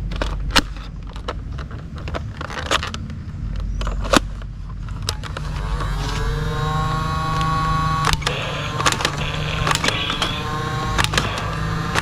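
A small electric motor whirring under a steady low hum, with sharp plastic clicks throughout. About six seconds in, a whine rises in pitch and then holds steady.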